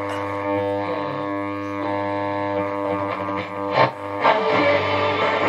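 A 1950–52 AWA Radiola 527MA valve radio's loudspeaker playing music from a broadcast station, with a steady low hum underneath, as the tuning is turned by hand. A brief crackle and dip come about four seconds in.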